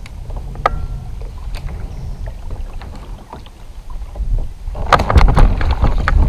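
Fishing kayak on the water: a low rumble of wind on the microphone and water along the hull, with scattered clicks of tackle. About five seconds in comes a louder burst of knocking and clatter.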